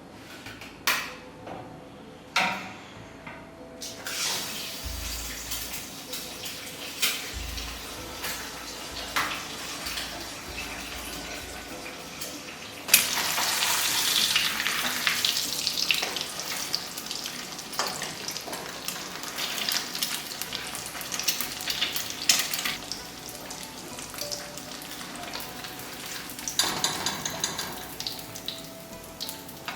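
Oil heating in a frying pan with a low crackle, a few sharp clicks near the start; about 13 seconds in an egg goes into the hot oil and a loud sizzle starts and keeps going as it half-fries.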